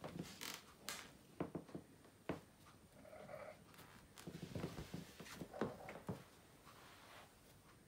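Soft rustling, scratching and light knocks from a long-haired cat moving about on a rug, with a brief soft call from the female cat in heat about three seconds in.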